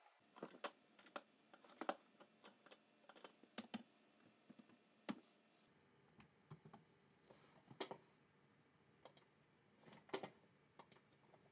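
Faint, irregular clicking of a computer keyboard being typed on.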